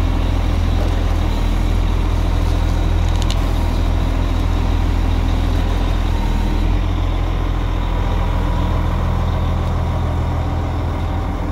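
Caterpillar 966H wheel loader's six-cylinder diesel engine idling steadily.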